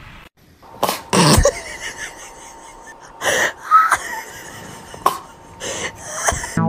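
A cat sneezing repeatedly after drinking from a water glass: about half a dozen short, sharp bursts over some five seconds, starting just under a second in.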